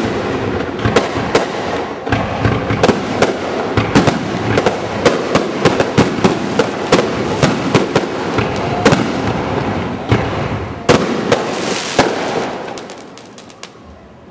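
Fireworks display: a dense, rapid run of bangs and crackling shell bursts, dying away near the end.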